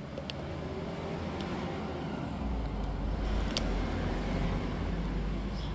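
Steady background noise with a low rumble that sets in about halfway through, and a few faint clicks.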